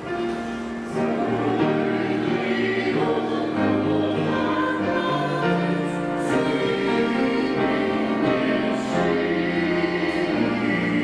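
Small church choir of mixed voices singing, accompanied on piano, with held notes over a moving bass line; a new phrase swells in about a second in.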